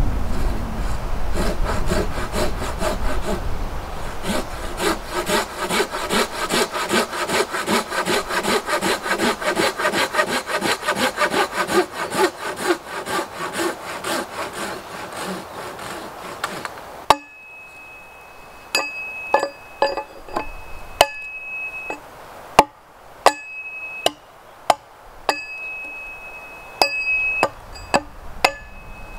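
Hand saw cutting through a log in quick, even strokes for about 17 seconds. The sound then changes to sharp, separate axe chops into a wooden pole, with a high ring coming and going between strikes.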